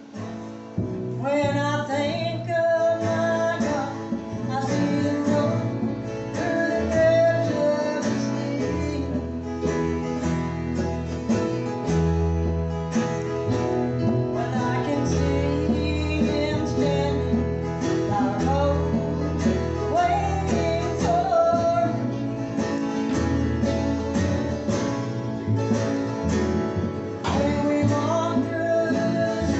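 Live gospel song with strummed acoustic guitar and bass, starting about a second in, with a woman singing.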